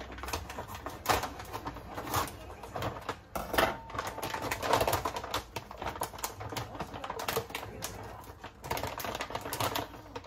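Plastic bag of raw chicken crinkling and crackling as it is handled and pulled open, in irregular clusters of sharp crackles.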